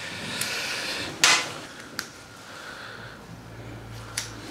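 Clicks and soft rustling from a syringe being handled and prepared in gloved hands. The loudest is one sharp snap about a second in, with lighter clicks later.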